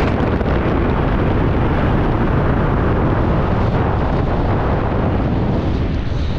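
Steady, loud wind noise buffeting a skydiver's helmet-camera microphone during canopy flight down to the landing area.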